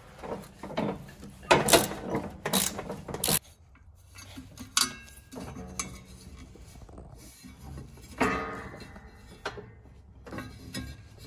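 Metal clicks and knocks from a hand tool working the screw and lifting the steel belt cover on a Troy-Bilt riding mower's deck. Several sharp knocks come in the first three seconds, then sparser, quieter handling sounds.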